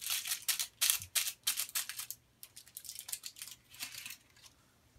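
Crinkling and rustling from crinkly material being handled, in quick bursts of crackles that are dense at first, thin out about two seconds in and stop a little before the end.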